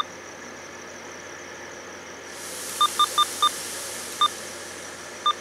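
Diesel-electric locomotive idling at a distance, with a hiss that rises about two seconds in and fades. Over it come seven short, high electronic beeps, a quick run of four in the middle and single ones before and after, louder than anything else.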